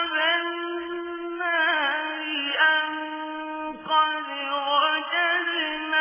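A single voice reciting the Quran in slow, melodic chant. It holds long notes and bends the pitch in ornamented turns between them.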